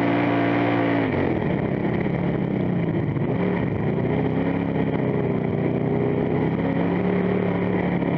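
Dirt-track race car's engine heard from inside the cockpit, dropping in pitch about a second in as the throttle comes off, then climbing back up over the next few seconds and running steadily.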